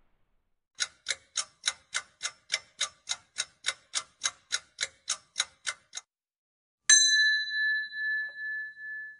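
Countdown clock-tick sound effect, about three and a half ticks a second for about five seconds, then, after a short pause, a single bright bell ding that rings on and fades with a wavering level, marking the reveal of the answer.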